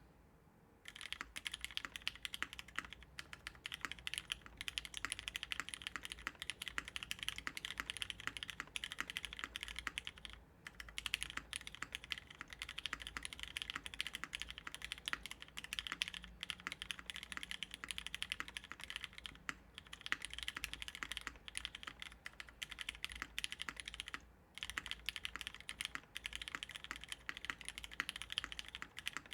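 Continuous fast typing on a custom mechanical keyboard with lubed linear Hyperglide Cherry MX Black switches, an aluminum plate and GMK doubleshot keycaps, a dense stream of key clacks broken by a few brief pauses.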